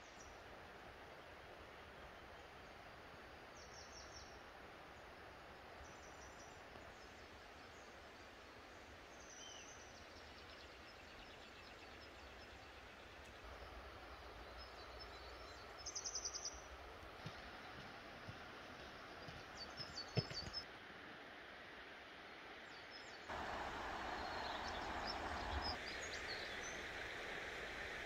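Small forest birds giving short, high chirps and calls here and there over a faint, steady rush of mountain stream water. The water sound grows louder near the end. A single sharp click about two-thirds of the way through is the loudest moment.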